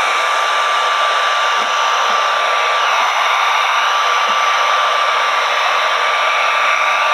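Handheld electric heat gun running steadily, its fan rush carrying a thin steady whine, blowing hot air to soften vinyl wrap film so it conforms.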